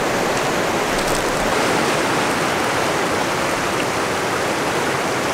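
River water rushing over rapids: a steady, even noise of flowing whitewater.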